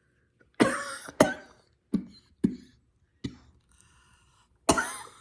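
A woman coughing: six sharp coughs in a row, the first and last drawn out and the fifth fainter. She is a little under the weather.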